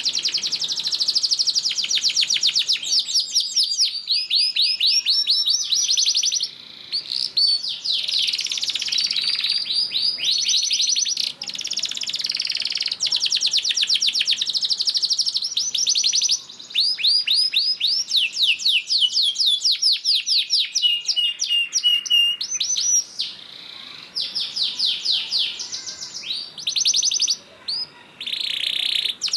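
Domestic canary singing long, rapid trills: runs of fast repeated notes and sweeping phrases with short breaks between them.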